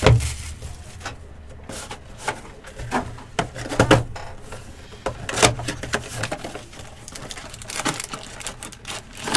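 Trading cards and their packs being handled on a table: irregular taps and clicks, the sharpest about four seconds in and again a second and a half later.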